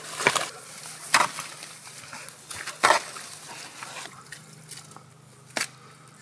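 Digging tool chopping into wet clay mud and scooping it out: a few sharp, wet strikes in the first three seconds, then one more near the end.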